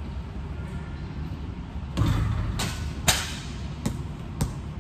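A basketball is shot at a hoop: it strikes the hoop about two seconds in, then bounces several times on a hard floor, each bounce a sharp knock.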